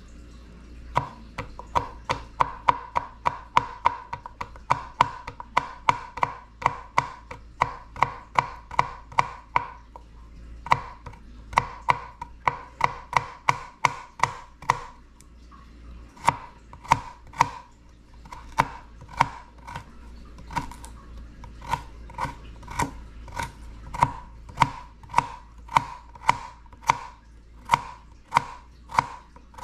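Kitchen knife slicing carrots on a plastic cutting board: a steady run of sharp chops, about two a second, each with a short clack, pausing briefly a couple of times.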